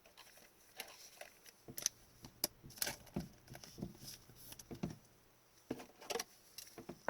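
Hockey trading cards being handled and flipped through, giving scattered soft clicks and brief rustles at irregular intervals.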